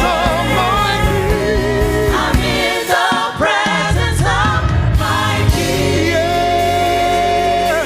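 Live gospel worship music: a singer and choir singing over a band with keyboards and bass, with one long held note near the end.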